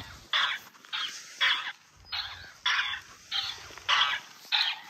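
Two electronic plush toys, a flamingo and a dog, caught in acoustic feedback, each replaying the other's sound through its speaker: a rapid, even run of short bursts, about two a second.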